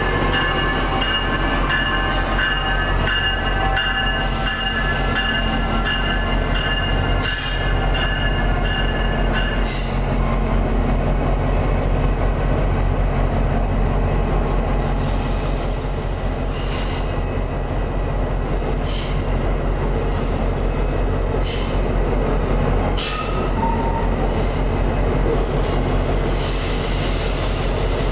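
Amtrak passenger train with fluted stainless-steel cars passing close by at speed: a steady rumble and rush of wheels on rail. A high-pitched whine runs over the first ten seconds, with a few sharp clicks along the way.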